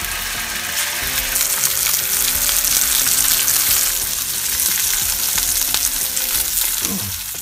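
Scored Brühwurst sausages sizzling in hot oil in a frying pan, the sizzle growing louder about a second in and staying strong.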